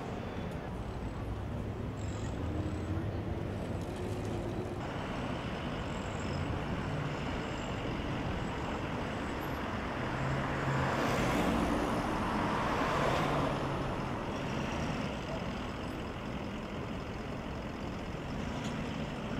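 City street traffic: engines running and vehicles passing, with a louder vehicle going by about halfway through.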